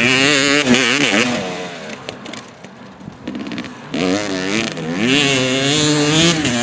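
Yamaha WR 250 two-stroke enduro bike's single-cylinder engine revving under throttle, its pitch wavering up and down. About a second and a half in it drops to a lower, quieter run, then revs up again about four seconds in and falls off near the end.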